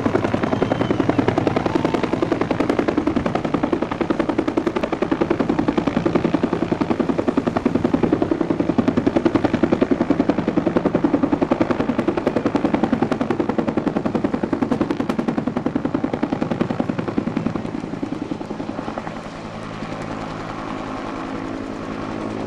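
A Bell UH-1 Huey-type helicopter with a two-bladed main rotor flying low and close, its rotor beating in a rapid, even blade slap. About nineteen seconds in, the sound drops a little and turns into a steadier engine and rotor hum as it draws away.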